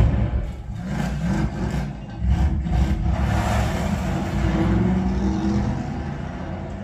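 Movie sound effects of car engines running and revving, opening with a deep low hit, played back through KEF Coda W speakers.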